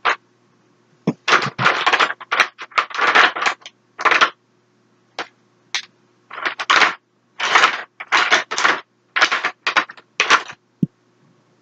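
Makeup products and their plastic cases clattering and rattling as they are rummaged through and sorted in a storage drawer, in many short bursts with brief pauses between.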